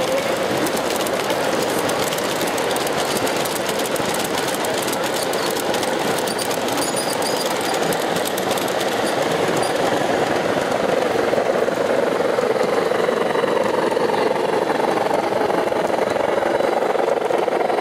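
G scale model trains rolling along the layout track, their wheels making a dense rattling and clicking over a steady background din. The clicking thins out about halfway through.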